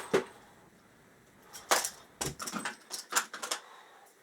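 A power drill with its attachment being handled and fitted: a series of sharp clicks, knocks and light rattles, clustered about two to three and a half seconds in, with no motor running.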